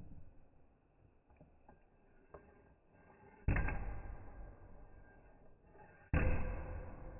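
Two hard knocks from paintless dent repair tool work on a hail-dented car roof pillar, about two and a half seconds apart, slowed down so each one rings out and dies away over about a second.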